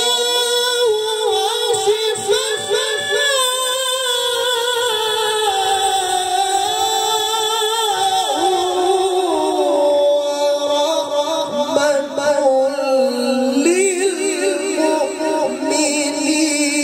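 A man chanting a Quran recitation (tilawah) solo into a microphone over a sound system, without accompaniment. He holds long melismatic notes that waver and slide between pitches, climbing to a higher phrase near the end.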